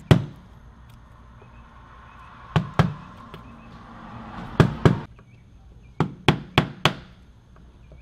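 Flathead screwdriver used as a chisel in a wooden door jamb, knocking and chipping out wood to enlarge the recess for a deadbolt strike plate: about nine sharp knocks in small irregular groups.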